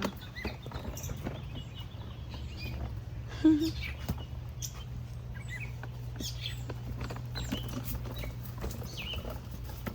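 Small birds chirping here and there over a steady low rumble, with one brief louder knock about three and a half seconds in.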